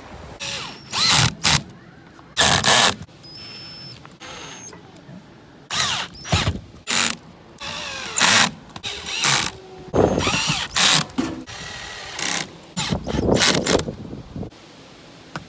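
Short, irregular bursts of mechanical noise and clatter from work on a rooftop RV air conditioner as its cover is put back.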